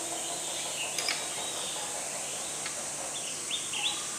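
A metal ladle clinks lightly against a ceramic bowl a few times and scrapes with short squeaks while soft steamed egg is spooned onto rice. A steady high hiss runs underneath.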